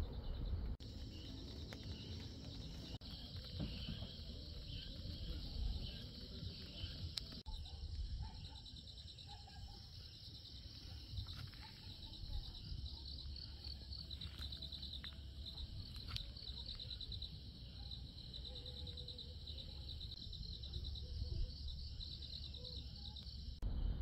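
Night insects chirping in rapid, repeated trills over a low rumble.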